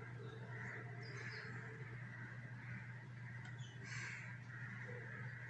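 Faint bird calls, a few short calls spread through, over a steady low hum.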